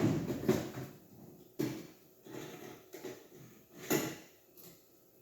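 Rummaging for a drill bit: a few sharp knocks and light clatter of hard objects being handled, with soft rustling between them and the loudest knock about four seconds in.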